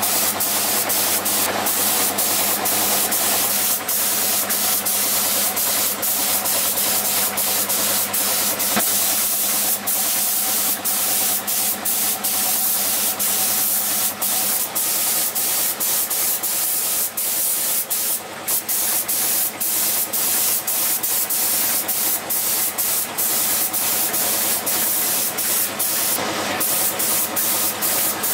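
Compressed-air spray gun hissing steadily as it sprays paint, with many brief breaks in the spray. A low steady hum runs underneath.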